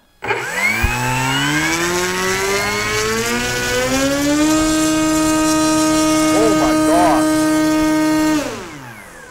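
Electric motor and propeller of an E-flite Carbon-Z Cessna 150 RC plane on 6-cell power, run up on a bench thrust check: a whine rising in pitch as the throttle comes up over about four seconds, holding steady at full throttle for about four seconds, then falling away as the throttle is cut.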